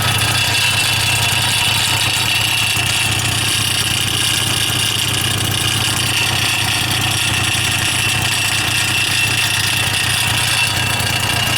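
Suzuki Address V100 (CE11) scooter's two-stroke engine idling steadily, with a steady high-pitched tone over it. The noise is the muffler's abnormal noise, from a muffler bought at an online auction that proved faulty.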